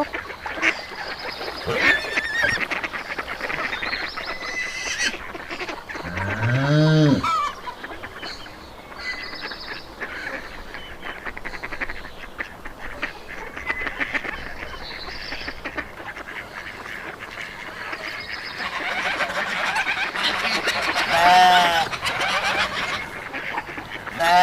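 Farm animals calling over one another, mostly farmyard fowl. There is a long call that rises and falls in pitch about six seconds in, and another around twenty-one seconds.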